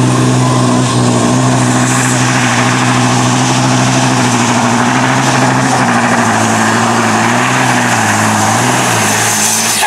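Volvo truck's diesel engine at full throttle, pulling a weight-transfer sled and pouring out black smoke. The engine holds a steady, loud note, then its pitch sags a couple of times near the end as the load pulls it down.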